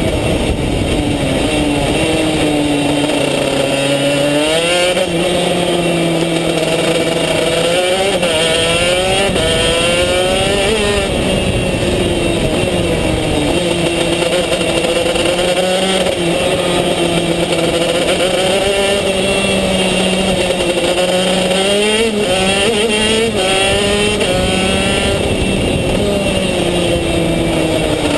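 Racing kart's engine heard close up from on board, revving up along the straights and dropping in pitch into the corners, over and over as the kart laps.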